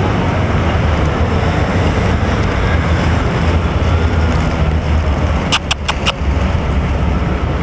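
Steady low rumble of city traffic, with a quick run of four sharp clicks about five and a half seconds in.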